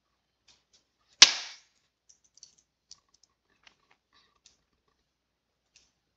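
One sharp, loud knock a little over a second in, dying away quickly, then a few faint scattered computer clicks while the frozen whiteboard site is being worked.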